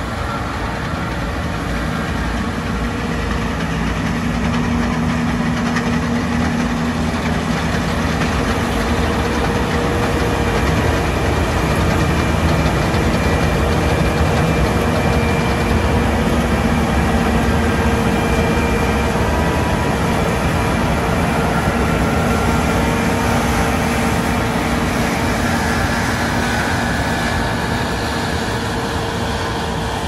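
John Deere T560i combine harvester running while cutting and threshing wheat: a steady engine and machinery drone with a constant hum, growing louder as it passes close by around the middle and then fading as it moves away.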